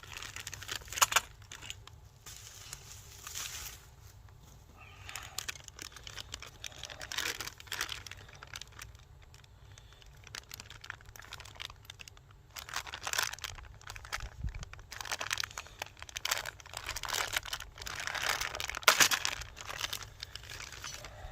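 Packaging being unwrapped by hand: irregular crinkling and tearing in bursts, with quieter pauses between.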